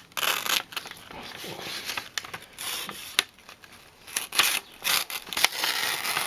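A kitchen knife push-cutting through a single sheet of paper: the paper rustles and crackles in short bursts, with several sharp ticks as the edge bites into it.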